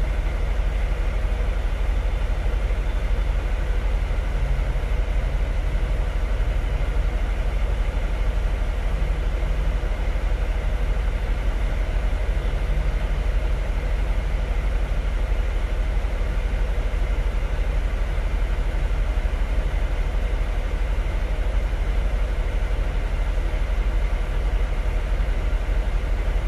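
Mitsubishi Canter truck's diesel engine idling steadily with the air conditioning switched on and cooling.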